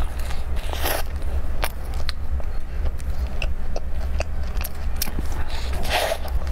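Bites into a flaky strawberry and cream-cheese danish pastry: two loud crackly crunches of the crust, about a second in and near the end, with small chewing clicks between. A steady low rumble lies under it all.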